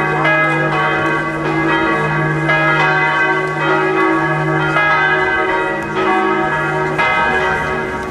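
Church bells pealing. Several bells strike in an irregular overlapping sequence, each leaving a long ringing hum.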